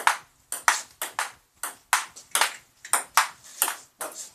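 Table tennis rally: the ping-pong ball clicking off paddles and the table top in turn, about three or four sharp clicks a second, often in close pairs.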